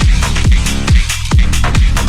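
Electronic music track, drum-and-bass style, with a fast beat and deep bass notes that drop in pitch again and again.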